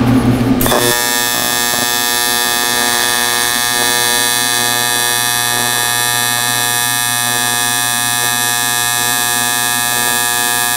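AC TIG welding arc on aluminum from an AHP AlphaTIG 200X set at 100 amps, 120 Hz AC frequency and about 25% balance: a steady, even buzz that strikes up just under a second in and holds without a break.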